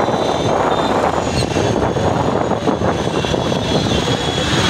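Steady rumble of motorcycle engines and street traffic on a busy road, picked up while moving along it, with wind noise on the microphone.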